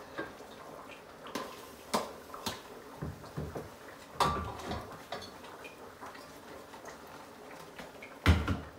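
A plate clinking and knocking against the rim of a metal soup pot as crayfish is tipped in and tapped off: scattered sharp knocks about a second apart, the loudest near the end.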